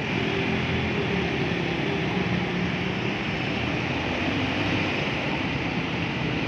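Steady street noise of motor vehicles driving through floodwater on a road, a constant rush with a faint low engine hum underneath.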